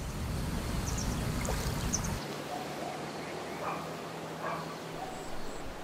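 Outdoor rural ambience: a steady hiss of open air with a few faint bird chirps. A low rumble drops away suddenly about two seconds in.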